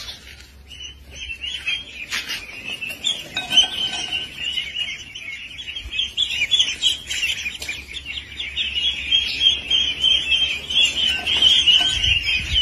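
A flock of ducklings peeping: a dense, continuous chorus of high cheeps from many birds at once.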